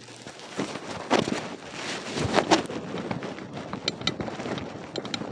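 Wind buffeting the microphone as a steady rumbling noise, with a few scattered knocks or clicks.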